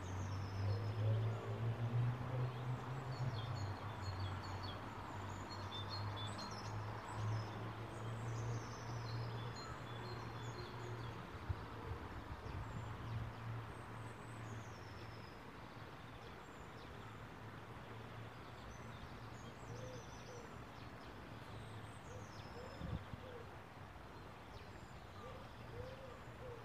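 Birds chirping and calling, with a low steady hum underneath that fades out about fifteen seconds in. Later on, a few short, low, arched calls are heard among the chirps.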